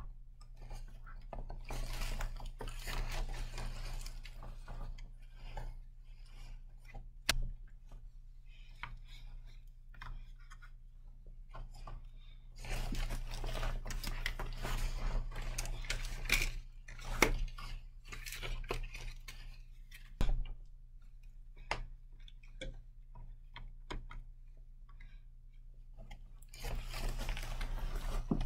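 Handling noise of airsoft tactical gear being put on: fabric rustling and clattering straps and buckles, with scattered sharp clicks and knocks, over a steady low electrical hum.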